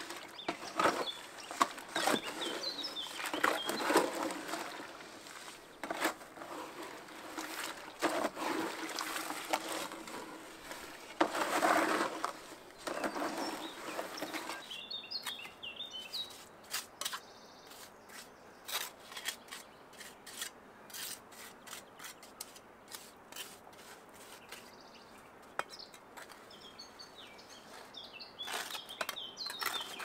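Trowel scraping and tapping wet mortar into the joints between flagstones, in irregular scrapes and knocks that are busiest in the first half and thin out to small clicks. Birds chirp briefly now and then.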